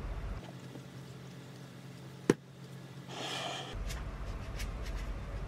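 Quiet kitchen handling sounds. A single sharp click comes about two seconds in, then a brief rattling hiss and a few light ticks as sesame seeds are shaken from a shaker over a bowl of stew.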